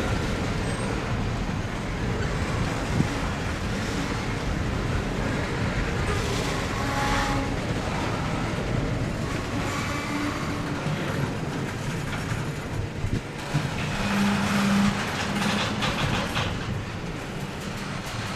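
Freight train cars rolling past on the rails: a steady rumble with wheel clatter.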